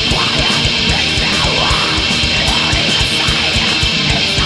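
Black metal band recording: heavily distorted guitars over fast, evenly spaced kick-drum strokes.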